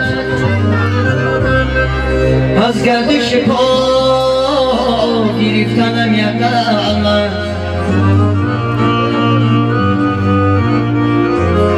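Korg electronic keyboard playing a melody with sliding notes over held bass notes.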